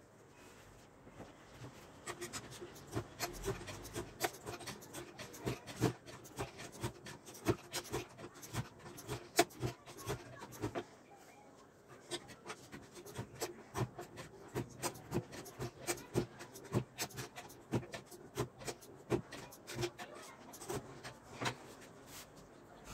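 A knife blade chopping through a tightly rolled sheet of yufka dough in a wooden cutting box, slicing erişte noodles. Each cut is a short, sharp chop against the wood, about two a second, with a brief pause about eleven seconds in before the chopping resumes.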